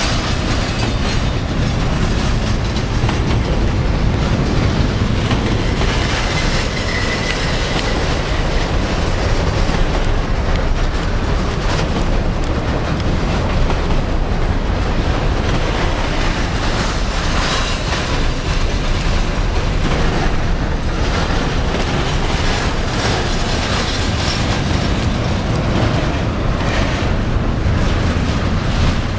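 Double-stack intermodal freight train's container well cars rolling past: a steady, loud rumble of steel wheels on the rails.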